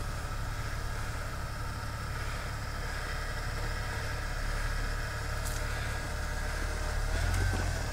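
Lifted Jeep Cherokee's engine running low and steady as the truck crawls slowly through snow off-road.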